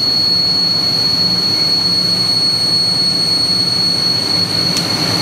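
A 1½-inch insert drill in a Hwacheon CNC lathe drilling 1018 cold-rolled steel at 1500 RPM, with a steady high-pitched singing squeal over the hiss of flood coolant spraying. The singing is a sign, the machinist thinks, that the drill insert is getting a little worn.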